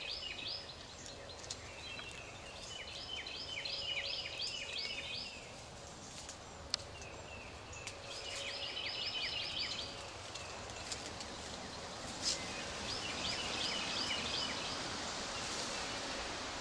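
A songbird singing a phrase of quick, repeated high notes, each phrase lasting a couple of seconds and coming three times with gaps between, over the steady hush of the woods. A couple of faint clicks are also heard.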